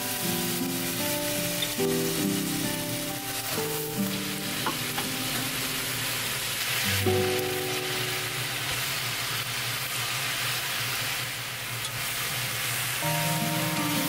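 Julienned carrot and burdock with fried tofu skin sizzling in oil in a frying pan, stirred and tossed with chopsticks. Soft background music plays under it.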